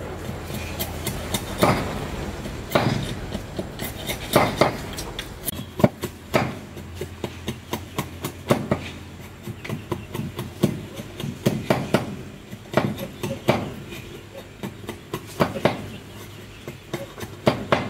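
Steel striking steel in sharp, irregular taps, about one a second and sometimes in quick pairs, as a flat steel knife blank is hammered on a wooden stump.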